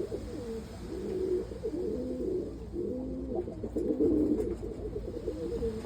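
Domestic pigeon cocks cooing: several low, throaty coos overlapping and repeating, the sound of courting or squabbling males.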